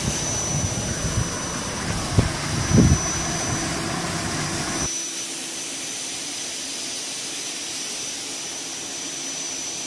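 Small insecticide fogging machine running with a steady blower hiss and a thin high whine, with two dull thumps a little over two seconds in. About five seconds in the sound abruptly becomes a thinner, slightly quieter steady hiss.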